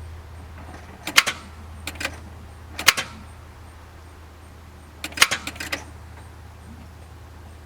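Several sharp clicks and light rattles, single and then in a quick cluster about five seconds in, over a steady low hum.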